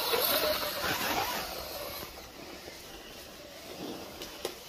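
Electric radio-controlled 6x6 scale crawler truck driving over leaf litter, its motor and gears whining and wavering in pitch. It is louder for the first couple of seconds and then fainter, with a single sharp click near the end.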